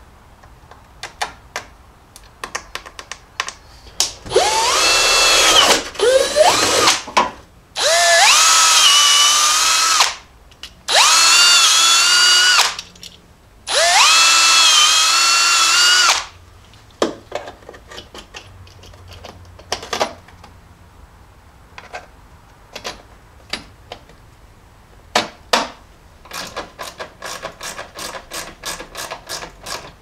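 Cordless drill running in about five runs of one to two seconds each, its whine rising in pitch as it spins up, drilling holes through the plastic side of a fuse box. Scattered clicks and then a quick run of ratcheting ticks near the end as small bolts are tightened by hand.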